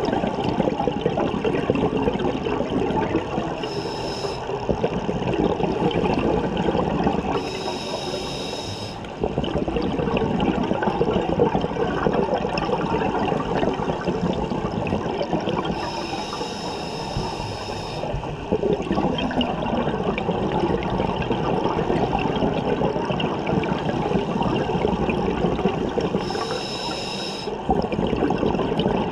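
Scuba regulator breathing heard underwater: long stretches of bubbling exhaust from exhalations, broken by a hissing, slightly whistling inhalation through the demand valve about every nine seconds.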